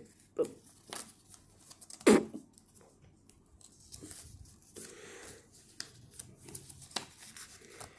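A sheet of origami paper rustling and crinkling in scattered short crackles as it is handled and folded, with one louder sharp snap about two seconds in.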